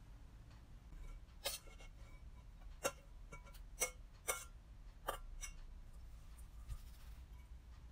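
Metal tongs clinking against a stainless steel bowl and a ceramic plate while broccoli and cauliflower florets are moved across: about six sharp, short clinks at uneven intervals, each with a brief ring.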